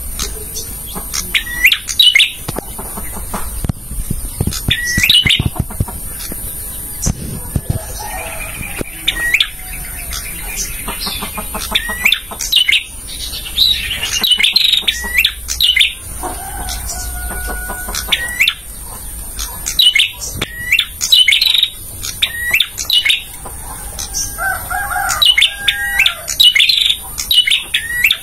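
Male prenjak (prinia) singing: a loud run of sharp, rising chirps repeated about once a second, with some lower calls mixed in now and then.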